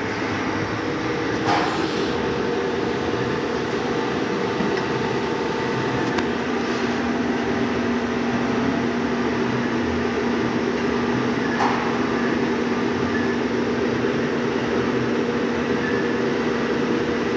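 CNC lathe running: a steady mechanical hum with several held tones. A lower tone joins about six seconds in, and there are two brief clicks.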